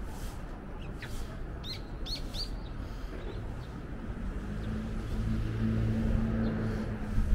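A small bird chirps a few short, sharp notes over steady street rumble, mostly between one and two and a half seconds in. In the second half a low, steady engine hum grows louder as a motor vehicle draws near.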